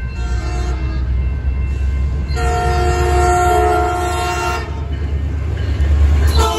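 Metrolink commuter train's diesel locomotive sounding its multi-tone horn for the grade crossing: a short blast, a long blast of about two seconds, and another starting near the end. Under it the locomotive's engine rumbles, loudest near the end as it passes close by.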